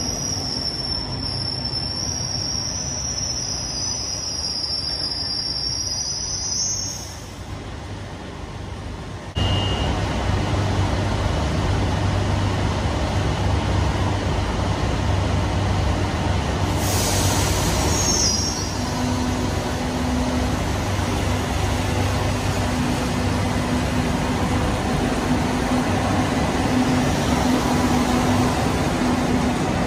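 Madrid Metro train running through an underground station. A high wheel squeal comes first, then the sound drops. About nine seconds in the level jumps suddenly to a steady rumble of wheels on rails with a low hum, broken by a brief high squeal about halfway through.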